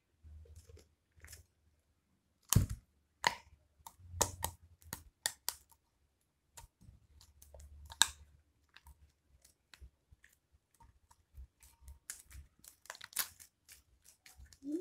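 White glue slime being kneaded, squeezed and stretched by hand with lotion worked into it, giving irregular sticky pops, snaps and crackles. The slime is still a little sticky.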